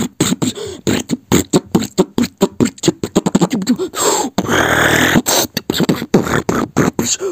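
Beatboxing: a fast run of sharp vocal drum hits, several a second, broken about four seconds in by a longer held mouth sound that falls in pitch before the hits resume.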